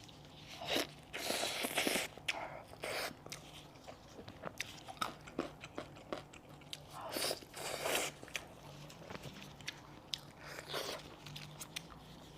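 Close-miked eating of a cooked goat head: biting and wet chewing in irregular bursts of short smacks and clicks.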